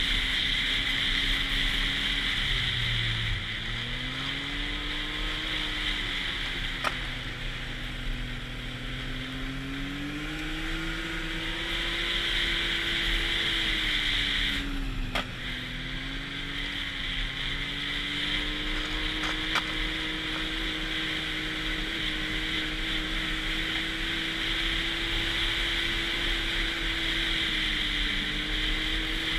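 Snowmobile engine running at trail speed, its pitch dipping twice as it eases off, about three and fifteen seconds in, then rising again, over a steady high hiss.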